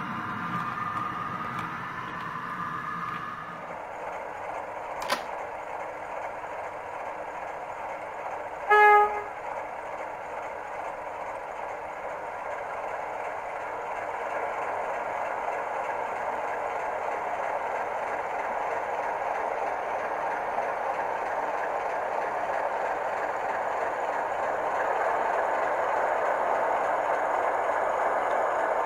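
H0-scale model V36 diesel locomotive running along the track, a steady motor and wheel noise that grows gradually louder as it nears. There is a sharp click about five seconds in and a short horn blast about nine seconds in.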